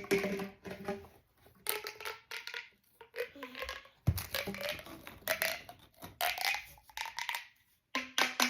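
Plastic pop tubes being stretched and squashed closed, a crackling, ratcheting crunch in repeated short bursts.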